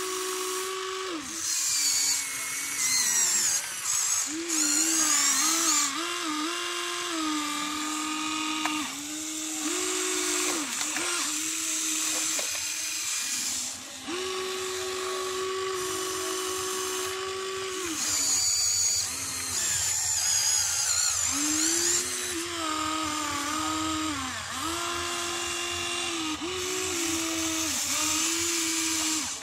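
Electric motors of a Huina RC excavator whining as it digs and swings loads of soil, the pitch holding for a few seconds at a time, then stepping up and down in short starts and stops as the boom, arm and bucket move.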